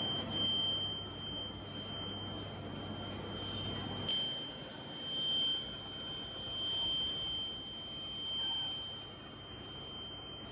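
A steady high-pitched whine held over a background of workshop noise, cutting off sharply near the end.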